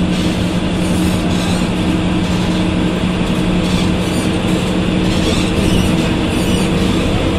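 Ikarus 280 articulated bus under way, its Rába D10 diesel engine and ZF 4HP 500 automatic gearbox running steadily with a held low tone.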